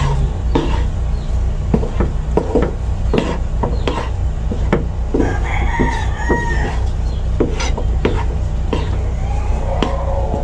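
Wooden spatula knocking and scraping in a frying pan as a thick, sticky mixture is stirred, with a rooster crowing about halfway through and again near the end, over a steady low hum.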